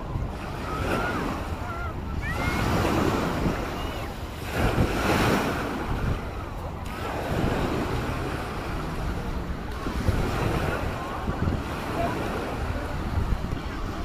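Small waves washing onto a sandy shore, in surges, with wind buffeting the microphone and the voices of many bathers mixed in.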